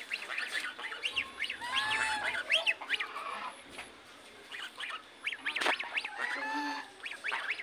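A flock of domestic geese honking: many short calls overlapping, in two bouts with a brief lull between them.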